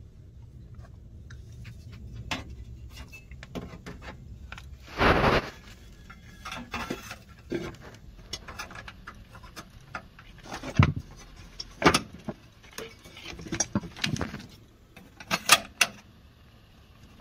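Metal inner door assembly of a Rheem gas water heater being handled and fitted into the burner opening: scattered metal clinks, knocks and scrapes, with a louder scrape about five seconds in and a few sharp clicks in the second half.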